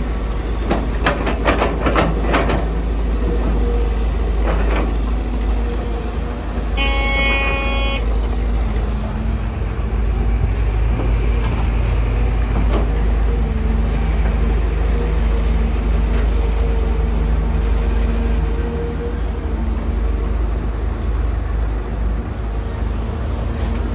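Kobelco SK250 excavator's diesel engine running steadily under load as it digs and swings, its pitch shifting with the work. Sharp knocks of the bucket biting into the soil in the first couple of seconds, and a vehicle horn tooting once for about a second around seven seconds in.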